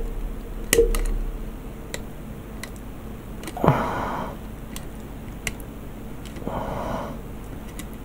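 Hands handling plastic model-kit parts and wiring: scattered light clicks and taps, with a short rustling scrape a little over three and a half seconds in and a fainter one near six and a half seconds.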